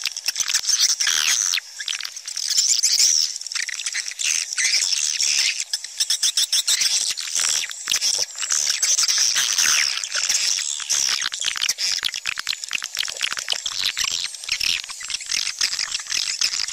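Swiftlet calling sound: dense, continuous high chirping and twittering of swiftlets, a lure call played to draw swiftlets into a nesting house.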